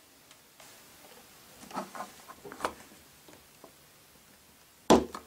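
Small plastic cutters working at hard vintage toy plastic: faint scraping and small clicks, then one sharp snip about five seconds in as the last bit of a plastic cross is cut away.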